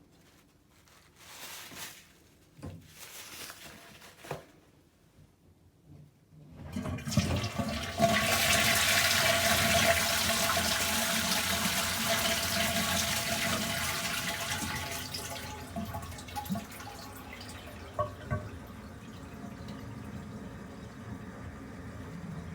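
Toilet flushing: a few light clicks and knocks, then about seven seconds in a loud rush of water that gradually dies down after several seconds into a quieter, steady run of water.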